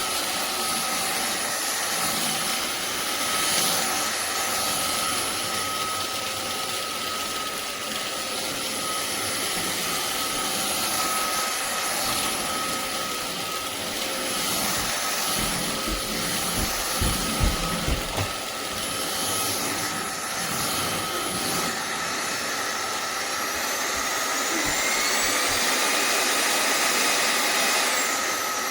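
INTETURE BP10 cordless stick vacuum running with a steady high whine over a rush of air. Near the middle there are a few low thuds. About 23 s in the motor speeds up, its whine rising in pitch and staying high for several seconds.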